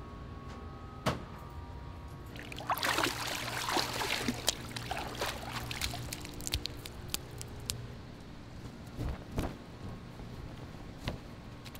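Water pouring and trickling for a few seconds, crackling with small splashes, over a faint steady hum. A couple of soft thumps follow near the end.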